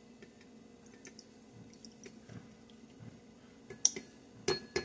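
Citrus juice being poured from a glass bowl through a metal grater into a small glass bowl: faint scattered ticks, then a few sharp clicks about a second before the end.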